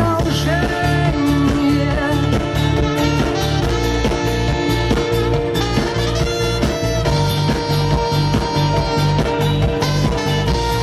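Live rock band playing an instrumental passage, with no singing: electric and acoustic guitars, bass and drums keeping a steady beat under long held lead melody notes, amplified through a stage PA.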